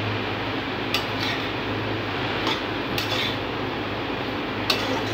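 Metal spatula stirring vegetables in a metal wok, scraping and striking the pan in several sharp clinks about a second apart, over a steady background hiss.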